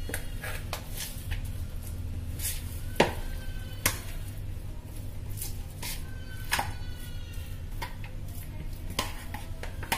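Spoon and bowl clinking: scattered sharp clicks and knocks, the loudest about three seconds in, over a steady low hum, with a few short faint squeaks.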